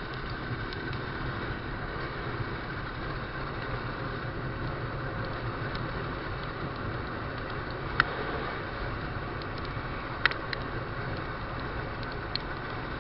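Honda NX200 motorcycle riding steadily in the rain: its single-cylinder engine runs evenly under a constant rushing of wind and wet-road noise. Two sharp clicks, about eight and ten seconds in.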